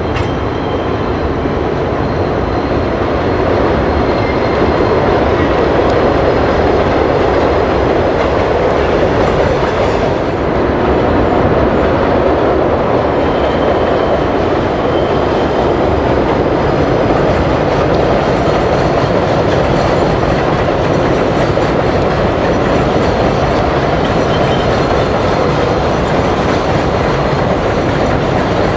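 Subway train running steadily on the rails, a continuous rumble with wheels clicking over the rail joints.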